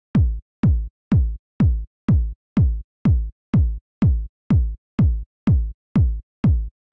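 Layered electronic kick drum, a Roland TR-909 kick with a TR-707 kick on top for a clicky knock, looping four-on-the-floor at about two hits a second. Each hit is a sharp click followed by a deep body that falls in pitch.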